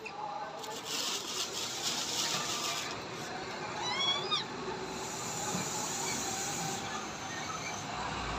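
Plastic bag crinkling and rustling for a couple of seconds, then a short run of high squeaky calls about four seconds in.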